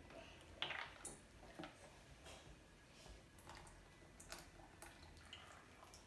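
Slime being mixed after the activator has gone in: faint, scattered squishes and soft clicks, one or two a second, over near silence.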